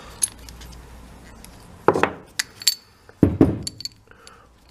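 Loose steel impact-wrench hammer parts clinking and knocking together as they are handled, a few sharp knocks with a metallic ring about two seconds in and again about three seconds in.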